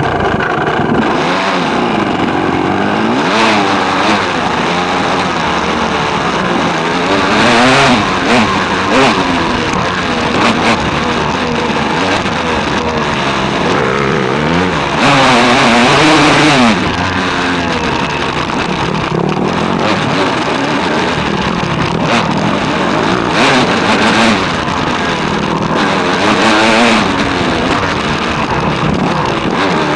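Dirt bike engine heard from a handlebar-mounted camera, revving up and falling back over and over as the bike rides a rough trail, with wind noise and knocks from bumps. A louder rush of noise comes about halfway through.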